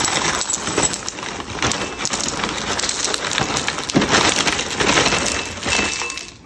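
Dry cereal (granola clusters and flakes) pouring from a box's plastic liner bag into a ceramic bowl: a dense patter of small pieces clinking and rattling on the bowl, stopping near the end.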